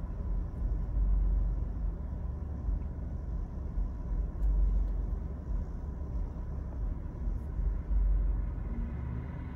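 Low, steady rumble inside a car's cabin, its engine idling while waiting in slow traffic at a light.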